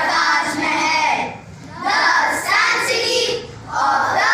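A group of children reciting a poem together in unison, in short phrases with brief pauses between them.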